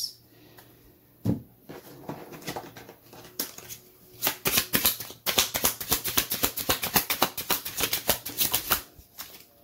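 A deck of cards being shuffled by hand: a fast run of crisp card snaps, several a second, through the second half, after a single knock about a second in.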